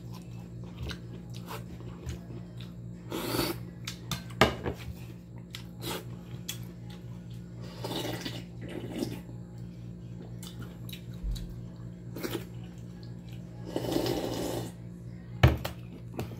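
A person eating pesa fish broth and fish by hand: several noisy slurps and sips from a glass bowl, the longest about fourteen seconds in, with a couple of sharp knocks as the bowl and fingers meet the plate, over a steady low hum.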